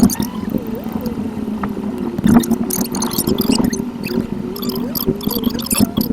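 Car cabin and road noise picked up by a dashcam while driving, played back at high speed: a steady drone with wavering squeaky glides and rapid high ticks.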